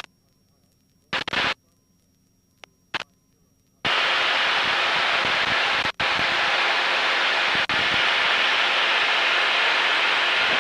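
Aviation radio static: short bursts of hiss about a second in and again near three seconds, then a steady hiss from about four seconds in, broken by two brief dropouts.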